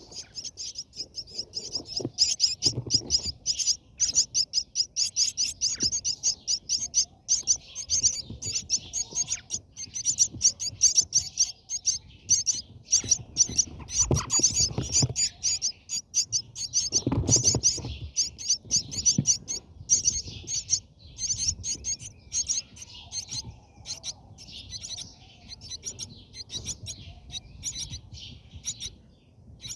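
Brahminy starlings chirping in a rapid, continuous run of high, short calls, several a second. A few low thumps or rustles sound underneath.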